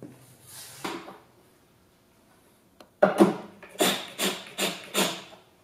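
DeWalt cordless drill/driver run in about six short trigger bursts against the wooden leg, starting about halfway through. There is a softer handling sound near the start.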